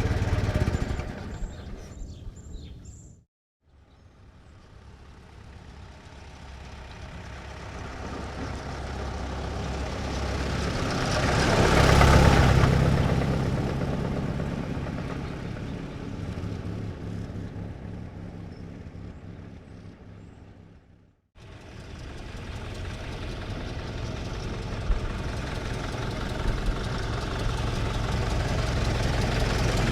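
1924 Ford Model T stake bed pickup's four-cylinder engine. It dies away in the first few seconds. Then the truck drives past at medium speed, rising to its loudest about 12 seconds in and fading out. After a short break it comes in again at a slow pace, growing louder toward the end.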